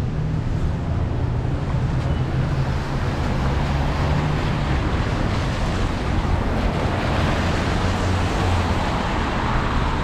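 Steady road and engine drone of a moving car, with a low hum that drops slightly in pitch about halfway through, mixed with tyre and wind noise.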